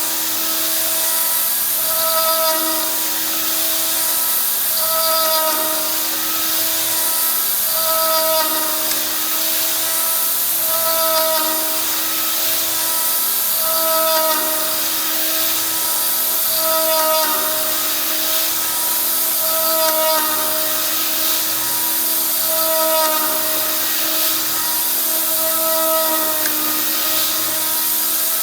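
RotoZip rotary-tool spindle, run slowed on a Variac, milling aluminum on a DIY CNC router. A steady high hiss runs under a whine of several tones that swells and fades about every three seconds as the machine repeats its passes.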